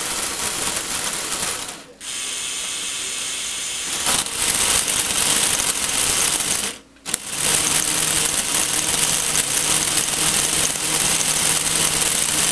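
Lego Technic plastic gear train spinning under a Lego electric motor, a dense whirring clatter of meshing plastic gear teeth. It cuts out briefly about two seconds in, runs quieter for a couple of seconds, comes back louder, and cuts out again for a moment near the middle.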